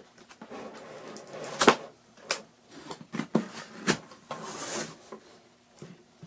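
Cardboard packaging being opened by hand: a string of sharp knocks and clicks as the flaps and inner box are handled, with a short stretch of rustling and scraping of cardboard a little after the middle.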